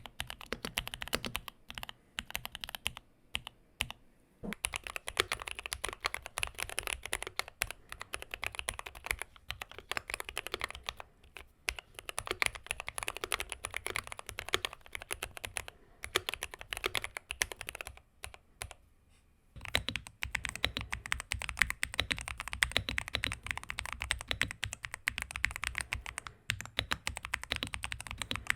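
Typing on custom mechanical keyboards: a fast, uneven run of key clacks broken by brief pauses. About two-thirds of the way through, after a short pause, the typing resumes with a heavier, lower thock.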